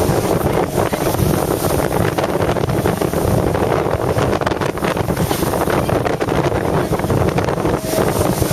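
Wind buffeting the microphone on a sailing yacht under way, over the steady rush of water streaming past the hull.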